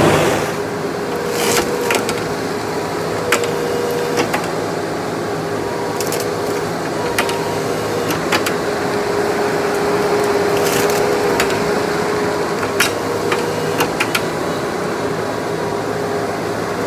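Heavy tree-cutting machine's engine running steadily, with sharp cracks of wood splintering now and then.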